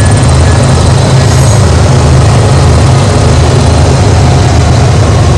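Several BNSF diesel-electric locomotives passing at close range: a loud, steady, low engine drone mixed with wheel and rail noise.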